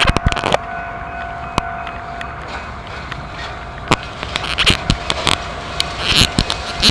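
Train rolling past, its wheels clacking irregularly over the rail joints, with a steady tone under it.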